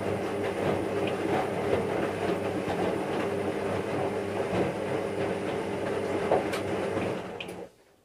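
Washing machine running: a steady motor hum with the drum churning and rattling, and small clicks throughout. It cuts off suddenly near the end.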